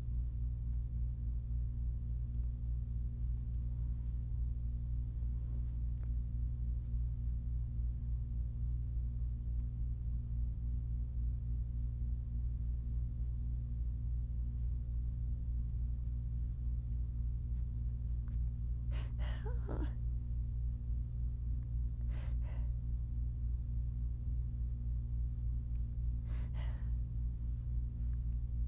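A person's three short breathy sounds, like sighs or gasps, the first with a falling pitch, spaced a few seconds apart in the last third, over a steady low electrical hum.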